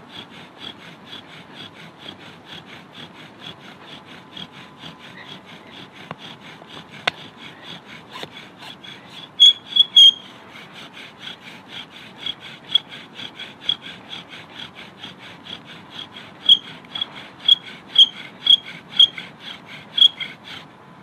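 Bow drill fire-lighting: a wooden spindle spun back and forth by the bow grinds and squeaks in the wooden hearth board, about three strokes a second. Several strokes come out louder and shriller about halfway through and again near the end, as the smoking socket heats toward an ember; the strokes stop shortly before the end.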